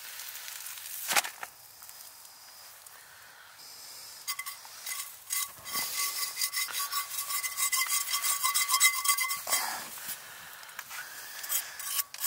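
Food sizzling in a frying pan, with a sharp knock about a second in, then a utensil scraping and stirring rapidly in the pan for several seconds.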